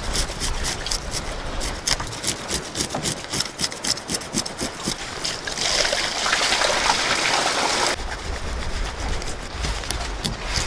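Rapid scratchy clicks of knife and hand work on a sea bass lying on a plastic cutting sheet, then water splashing over the fish for about two seconds, with a low rumble of wind underneath.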